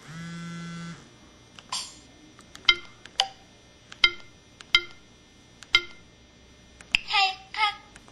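Samsung SCH-E300 mobile phone playing its built-in sound effects through its speaker: a one-second buzzy tone at the start, then about six short sharp clicks spaced a second or so apart, and two quick warbling chirps near the end.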